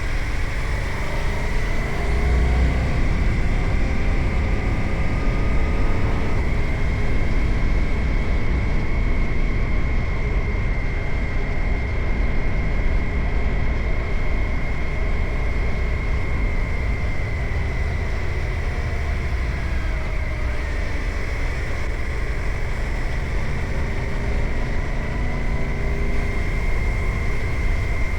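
Suzuki GSX-8R's parallel-twin engine running under way, its pitch climbing and dropping a few times as the bike accelerates, under heavy wind rumble on the camera microphone. A steady high whine sits over it throughout.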